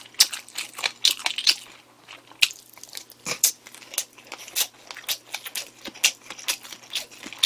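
Close-up chewing of a mouthful of crunchy pork cartilage mixed with flying fish roe: a run of irregular crisp crunches and small clicks as the cartilage is bitten through and the roe pops.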